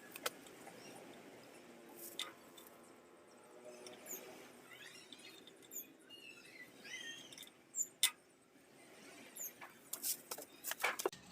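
Quiet, with a few scattered sharp clicks and taps and some faint high chirps in the middle.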